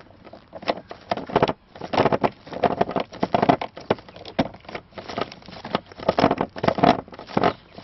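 A screwdriver is being turned by a gloved hand to loosen a screw beside the steering column. It makes a run of irregular short clicks and rustles as the glove rubs and grips the plastic handle and the tip works the screw.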